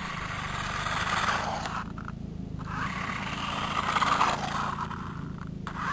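Small electric motor and gears of a cheap toy RC car whirring, with its tyres rolling on concrete. The car runs on a larger battery pack holding two extra AA cells. The whir comes in spurts, cutting out briefly about two seconds in and again near the end.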